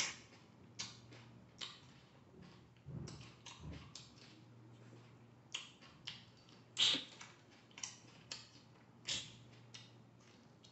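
Raw carrot crunching as it is bitten and chewed close to the microphone: a series of sharp, crisp crunches at irregular intervals, the loudest about two-thirds of the way through.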